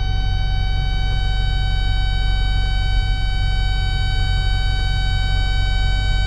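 Cat 316 excavator's diesel engine running steadily under load, with a continuous, unwavering high-pitched tone over the low rumble.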